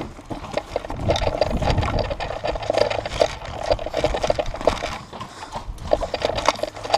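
Irregular clicking, rattling and scraping of carried gear and an airsoft rifle, with footsteps on dry dirt, as the player walks. The clicks come in clusters throughout.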